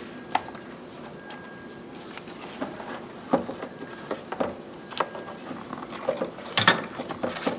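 Car interior parts being handled by hand: scattered sharp clicks and knocks, with a quick cluster of them near the end.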